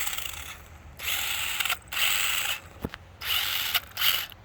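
Toy RC car's electric motor and gear drive whirring in about five short bursts of throttle, its wheels spinning and digging into the mulch.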